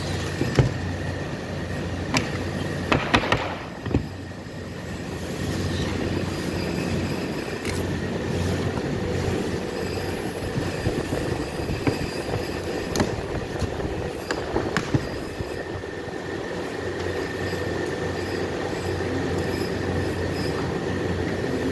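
Steady hum of workshop machinery running, with scattered knocks and clatter as chipboard panels and plastic fittings are handled, and a cluster of louder knocks about three seconds in.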